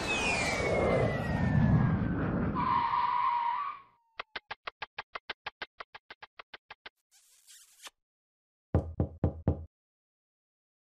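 Edited-in cartoon-style sound effects: a falling whistle over a noisy rush that ends on a held tone, then a quick run of about twenty evenly spaced ticks, a short hissing sparkle, and four quick pops near the end.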